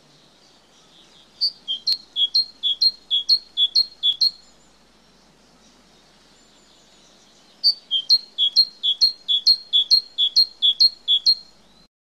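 Great tit singing its two-note "teacher-teacher" song: a run of high-low note pairs, about two pairs a second, then after a pause of about three seconds a second, longer run of the same pairs.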